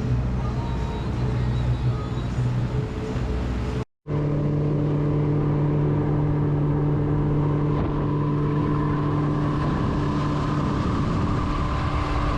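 A fishing skiff's engine running steadily under way, with a steady hum. It cuts out completely for a moment about four seconds in, then carries on at a slightly different pitch.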